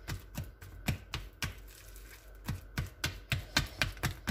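Wire balloon whisk mashing ripe banana in a plastic bowl, its wires clicking and tapping against the bowl in a quick, irregular run of strikes that comes faster in the second half.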